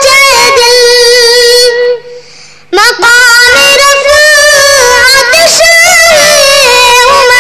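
A naat, an Urdu devotional song in praise of the Prophet, sung by a high voice in long, ornamented held notes with a wavering pitch. The singing breaks off briefly about two seconds in, then carries on.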